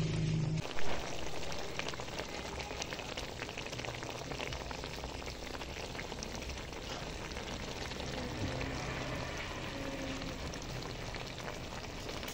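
Wild bee larvae and sour bamboo shoots sizzling and crackling steadily in a hot metal wok as they are stir-fried. There is one sharp knock about a second in.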